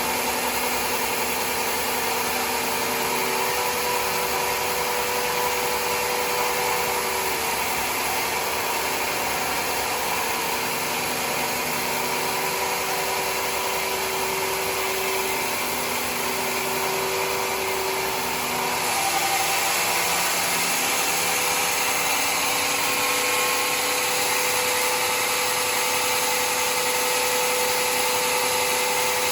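Sawmill running steadily while sawing mahogany, a continuous machine hum with a hiss of cutting over it; the pitch and character of the sound shift about nineteen seconds in.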